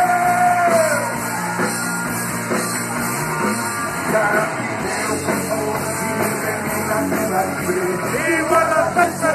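Live rock band playing loud, with electric guitar, drums and a singer: a long held note ends about a second in, and the singing comes back in over the band from about four seconds in.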